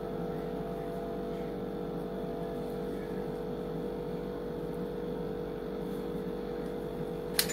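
A steady background hum made of several constant tones, unchanging throughout, with a couple of short light clicks near the end.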